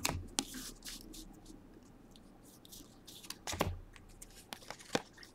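Cards being thumbed through by hand, card stock sliding and flicking against the stack in a few soft rustles and clicks; the clearest come a little past the middle and near the end.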